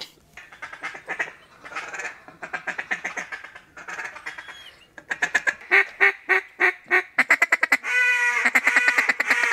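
Hand-blown mallard duck call, quacking in a string of short notes that grows louder and faster about halfway through, with a longer wavering note near the end. The call sounds off: 'sick,' and not in a good way, in the hunters' words.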